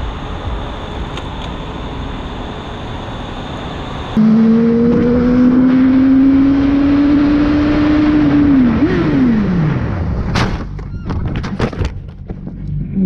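Motorcycle engine accelerating with a slowly rising note over wind noise on the rider's helmet-mounted microphone; the revs then jump briefly and fall away. About ten and a half seconds in comes a sharp impact followed by several knocks as the bike crashes and the rider goes down.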